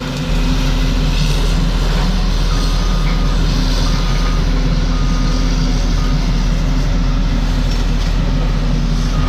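Heavy equipment engine running steadily under a backup alarm that starts beeping a couple of seconds in, about once a second.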